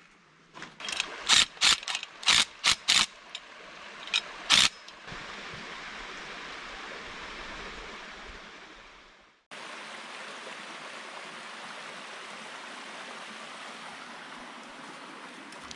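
A quick run of about eight sharp metallic clicks and rattles from handling quarter-inch steel cable and its fittings at a block wall. A steady rushing noise follows, cutting off and starting again about halfway through.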